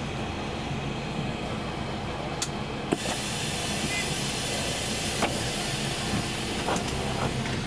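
Inside a Karosa C954E intercity bus, its diesel engine running steadily as the bus comes to a halt and idles at a stop. About three seconds in there is a sharp click followed by a rise in hissing air, with a few lighter clicks later.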